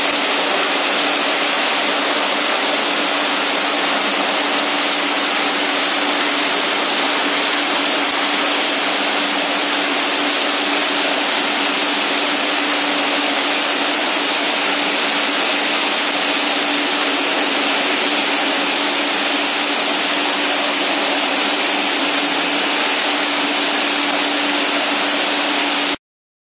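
PET bottle recycling line machinery running: a label separator and conveyor give a loud, steady mechanical noise with a steady hum, which cuts off suddenly near the end.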